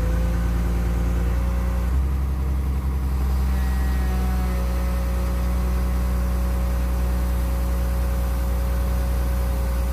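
Komatsu PC220LC excavator's diesel engine running steadily, with a steady whine over its low hum; the engine note shifts slightly about two seconds in. It runs smoothly now that a new fuel primer pump has stopped air getting into the fuel filter.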